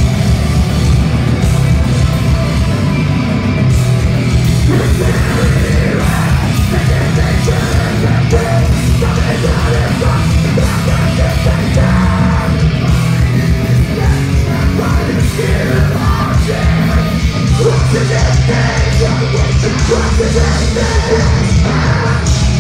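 Metalcore band playing live at full volume: distorted guitars, bass and fast, hard-hit drums under a screamed lead vocal.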